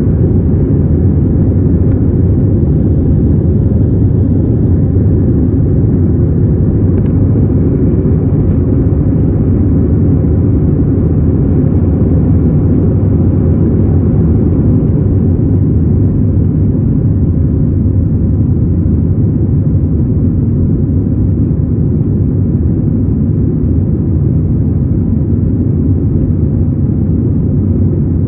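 Airliner engines at takeoff power heard from inside the cabin: a loud, steady low rumble that eases off slightly about halfway through.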